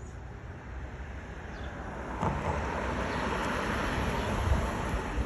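A steady rushing noise with a low rumble underneath, swelling about two seconds in and holding there.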